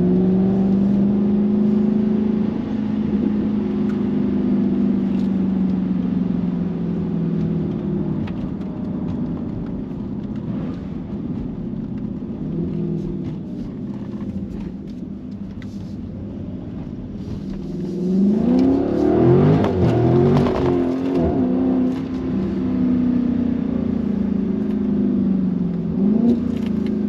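Dodge Charger's V8 heard from inside the cabin, pulling at steady revs and then easing off. About 18 seconds in, the revs swing sharply up and down for a few seconds as the car is drifted on a wet road, then settle back to a steady pull.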